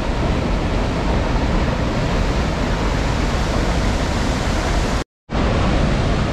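St. Mary Falls, a waterfall, rushing steadily and loudly. The sound cuts out completely for a moment about five seconds in, then returns.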